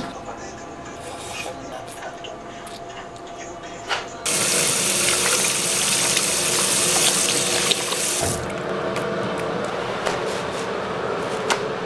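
Tap water running from a bathroom sink faucet onto hands being washed: a steady rushing stream that starts about four seconds in and is shut off about four seconds later.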